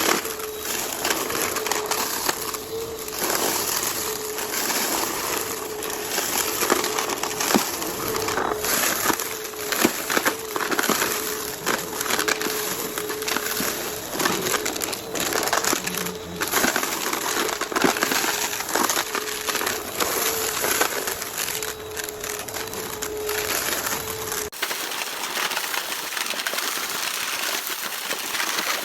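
Vacuum cleaner running with a steady motor hum while it sucks up crunchy debris, with constant crackling and crunching. About 24 seconds in the motor hum stops abruptly and a thinner crackling carries on.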